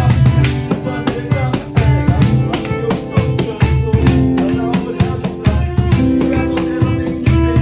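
Live band music: a drum kit keeps a steady beat under guitar and other instruments, with held notes coming in about halfway through.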